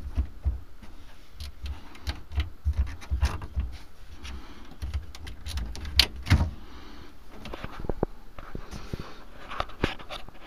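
Handling noise from a handheld camera: low thumps and rubbing with a run of sharp clicks and knocks, the two loudest about six seconds in.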